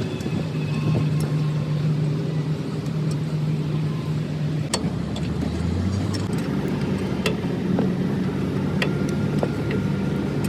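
An engine running steadily, with its pitch shifting slightly about five seconds in, and a few sharp metallic knocks.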